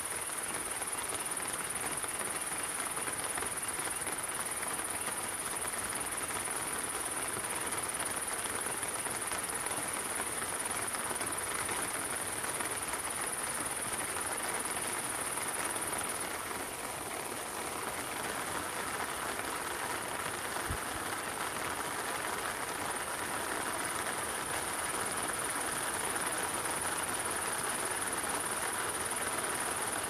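Steady rain falling in a forest, an even hiss with no breaks. A thin, high-pitched steady buzz sits above the rain, stops about halfway through and fades back in later.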